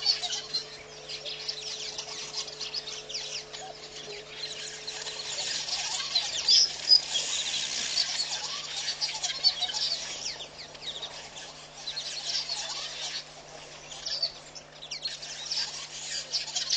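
Dense chorus of birds chirping and twittering, many short calls overlapping and swelling and fading in waves, over a faint steady hum.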